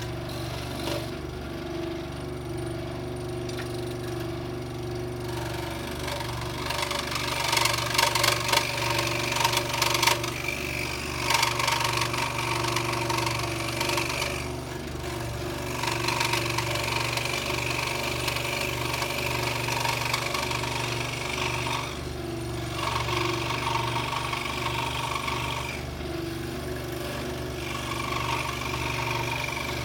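Scroll saw running with a steady hum, its blade rasping through the workpiece from about six seconds in, with a few brief pauses in the cutting.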